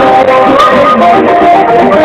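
Loud music led by plucked guitar, with quick changing notes.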